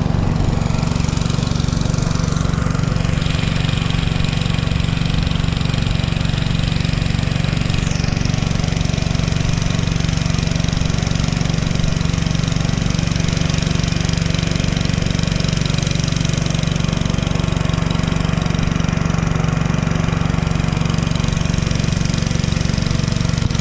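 A boat's engine running steadily at constant speed, a low drone, with a steady high hiss that grows louder about three seconds in.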